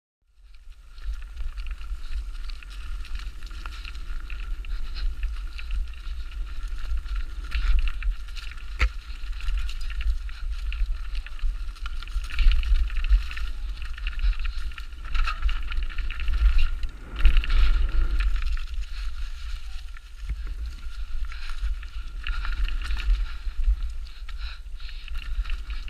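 Specialized Demo 8 downhill mountain bike running down a rough dirt trail: a continuous low rumble under a rattling, clattering noise that rises and falls with the terrain, and a sharp knock about nine seconds in. The sound starts suddenly from silence right at the beginning.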